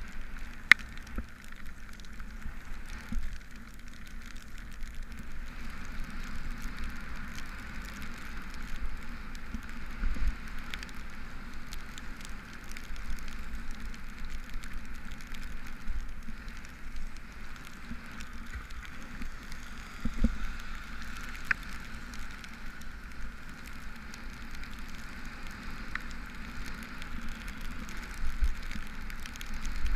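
Steady hiss of bicycle tyres rolling on a wet road in rain, with a low wind rumble that swells now and then and scattered sharp ticks of raindrops hitting the camera housing.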